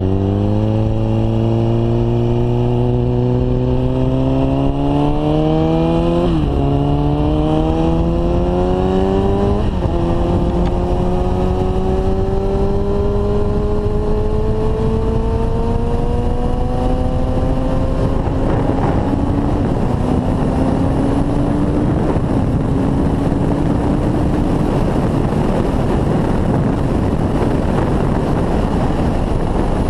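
Kawasaki ZX-6R inline-four engine accelerating hard, the pitch climbing and dropping sharply at two upshifts about six and ten seconds in. After that it winds up slowly in a higher gear. From about eighteen seconds on, a steady rush of wind noise at speed covers the engine.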